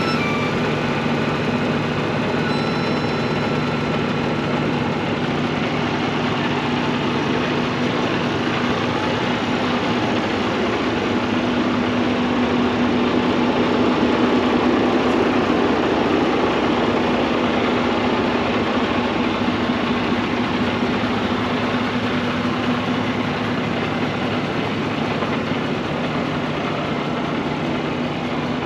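The diesel engine of a 2018 Freightliner semi tractor idling steadily, a little louder about halfway through.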